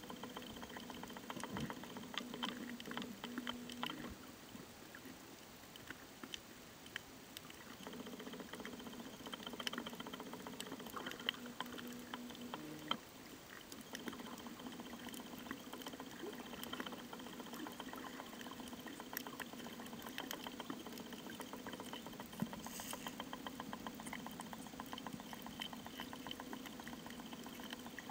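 Underwater ambience picked up by a submerged camera: a dense, continuous crackle of tiny clicks over a low hum.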